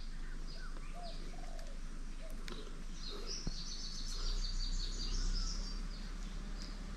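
Small birds chirping: short high chirps repeating every half second or so, with a quick run of rapid notes from about three to six seconds in.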